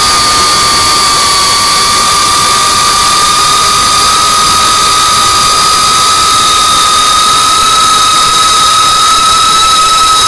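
FPV quadcopter's brushless motors and propellers whining steadily in flight, a high held tone over a rushing hiss with the pitch nearly level.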